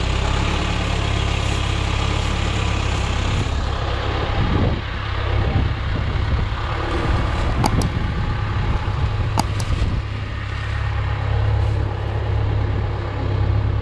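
John Deere 410B backhoe's diesel engine running steadily with a deep drone, with a few short sharp clicks a little past the middle.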